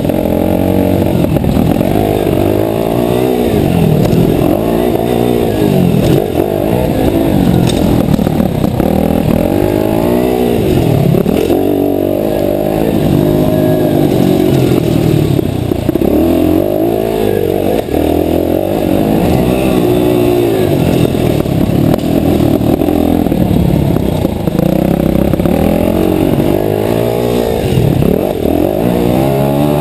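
Mini motocross bike engine heard from on board, revving up and dropping back again and again every two to three seconds as the bike is ridden through tight dirt-track turns.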